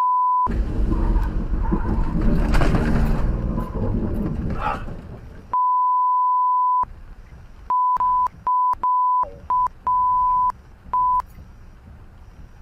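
Censor bleeps, steady high beeps that replace the audio entirely. There is one at the start, a longer one about five and a half seconds in, then a quick run of short bleeps. Between them is road noise from inside a car on a wet highway, loudest in the first few seconds and then fading.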